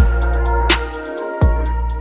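Background music with a drum beat: bass drum hits and high cymbal ticks over held tones, the bass dropping out briefly a little past the middle.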